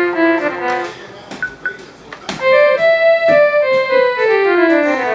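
Casio ML-1 mini electronic keyboard playing a few held notes, then after a short pause, a run of notes stepping downward in pitch from about halfway through.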